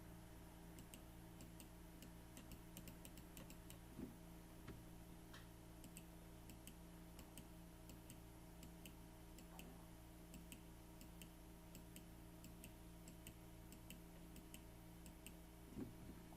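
Faint, quick, regular clicking of a computer mouse, a few clicks a second, stepping a CAD simulation along, over a low steady electrical hum.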